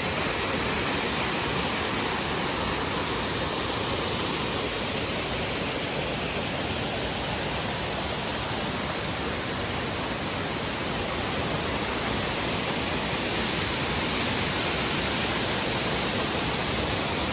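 Steady, even rush of falling water from the waterfall and its river, unbroken throughout.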